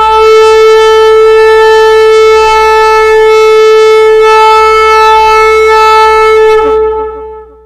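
A horn blast: one long, loud note held at a steady pitch, fading out about seven seconds in.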